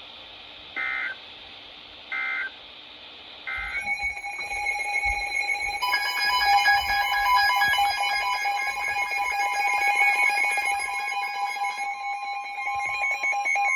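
Weather radio emergency alert tones: three short bursts of EAS digital data tones, the end-of-message code that closes a warning broadcast, then a loud, pulsing electronic alert tone of several pitches lasting about ten seconds.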